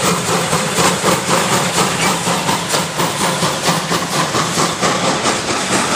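Ty2 steam locomotive pulling a passenger train away, its exhaust chuffing in a regular beat with steam hissing, as the coaches roll past with wheels clacking over the rail joints.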